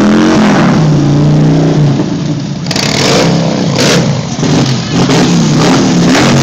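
A vehicle engine held at high revs during a tyre-smoking burnout, its pitch holding, then rising and falling as the throttle is worked, with a couple of short harsher bursts partway through.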